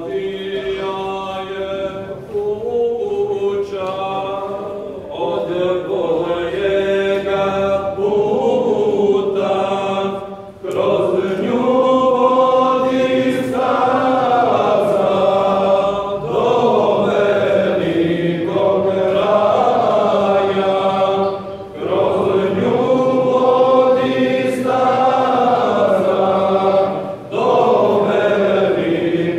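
Sufi dervishes chanting together, men's voices in long sung phrases that rise and fall, with brief pauses between them.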